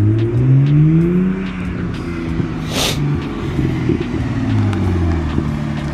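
BMW 128i's inline-six running with its muffler cut out, revving as the car accelerates and then easing off: the exhaust note climbs for the first second and a half, then drops and wavers. A short burst of hiss-like noise comes about three seconds in.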